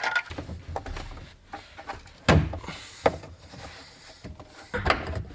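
Plastic interior pillar trim being worked loose by hand: a run of knocks and clicks against the car's body, the loudest about two seconds in, over low handling rumble.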